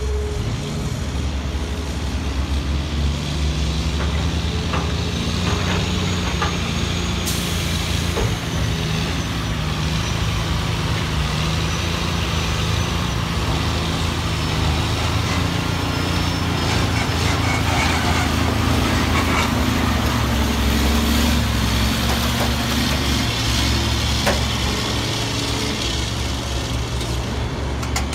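Diesel engines of a Caterpillar excavator and a semi-tractor dump truck running together: a steady low drone whose pitch rises and falls as the machines work.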